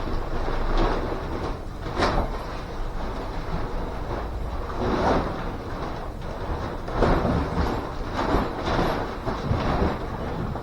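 Rustling and swishing of the sauna's cloth and waterproof fabric cover being handled and pulled over its pipe frame, with a sharp knock about two seconds in.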